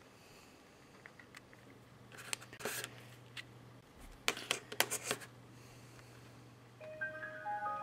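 Samsung YP-T10 MP3 player handled on a wooden table: scattered clicks, a short rub, and a cluster of sharp clicks about halfway through. Near the end the player starts its power-up chime, a short run of pitched notes, as it boots.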